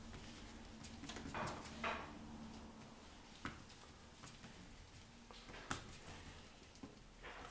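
Faint scrapes, swishes and small taps of a paintbrush working thick paint across a board, in short irregular strokes.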